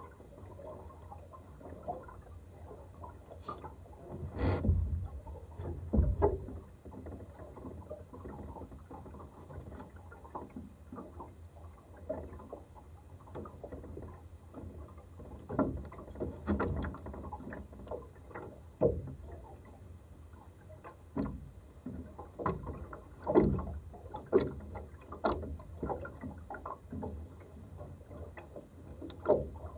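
Water slapping and gurgling against the hull of a Laser dinghy sailing in light wind: an irregular series of soft knocks and splashes over a low, steady rush, with a few louder slaps.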